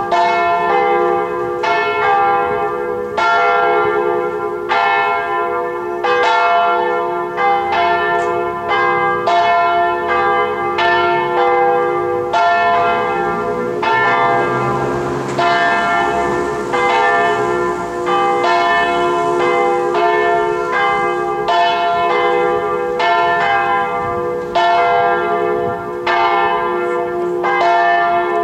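Church tower bells ringing together, strokes landing irregularly about every half second to second over a steady hum from the bells' lingering ring. A brief rush of noise swells under the bells about halfway through.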